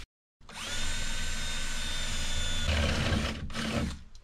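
Cordless drill spinning up and drilling through the sheet-metal body of a VW T4 van: a steady motor whine for about two seconds, then a rougher, noisier stretch as the bit cuts, a brief stop, and a short second burst near the end.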